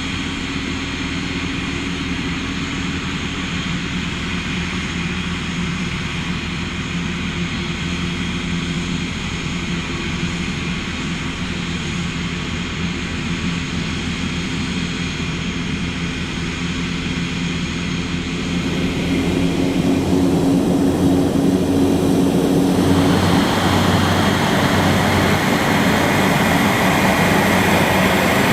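Piaggio P-180 Avanti's twin pusher turboprop engines running steadily, a turbine whine over propeller drone. It grows louder about two-thirds of the way through.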